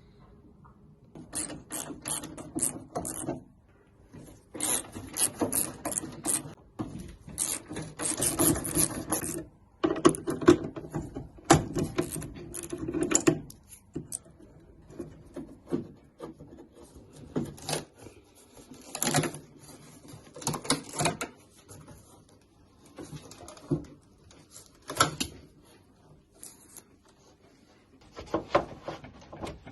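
Hand tools working on a classic Volkswagen Beetle door as its fittings are stripped out: bouts of metallic clicking and rattling a second or two long, with short pauses between.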